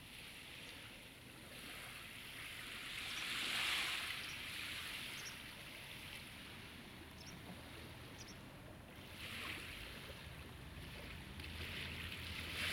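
Small sea waves washing onto the shore, each one swelling to a hiss and fading away, with surges about four seconds in, near ten seconds and at the end.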